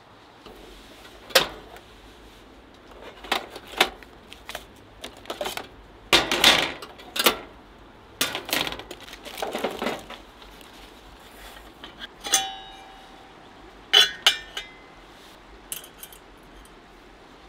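Stainless-steel coffee gear being handled: a string of clinks, clatters and knocks as a folding steel dripper is set up on a pot, with two ringing metal knocks about twelve and fourteen seconds in.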